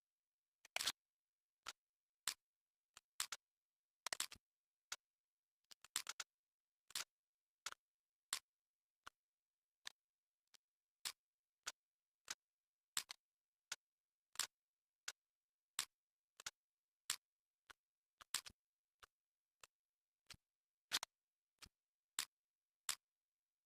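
Sharp metallic clicks of Springfield XDm pistol parts being taken apart and fitted back together. The clicks come singly or in quick pairs, about one or two a second, with dead silence between them.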